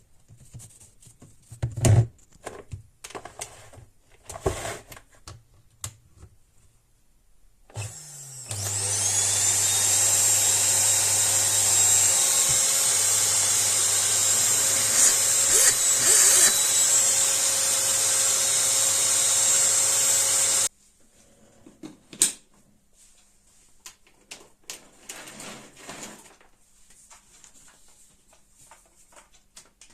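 Small handheld vacuum cleaner switched on about eight seconds in. Its motor spins up quickly to a steady high whine, runs for about twelve seconds, then cuts off suddenly. Light clicks and knocks of handling come before and after.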